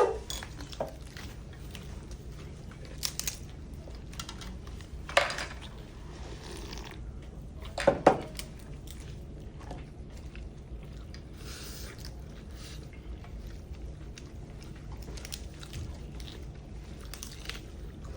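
People eating chicken curry noodles: chewing and biting, with a few sharp clinks of utensils against bowls, the loudest near the start and about five and eight seconds in, over a steady low hum.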